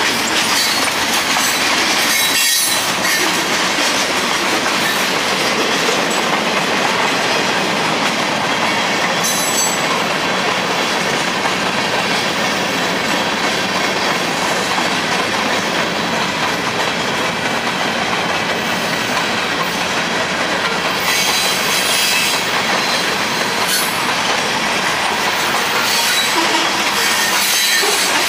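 Norfolk Southern mixed freight train's boxcars and covered hopper cars rolling past at a steady pace. The steel wheels on the rail make a loud, continuous running noise.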